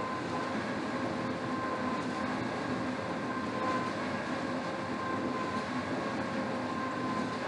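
Rowing machine's flywheel whirring steadily under continuous rowing, a constant whir with a faint steady hum in it.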